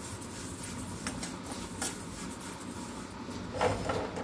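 Cumin seeds being stirred while dry-roasting in a hot steel pan: a soft steady scraping with a few light clicks, and a louder scrape and rattle near the end.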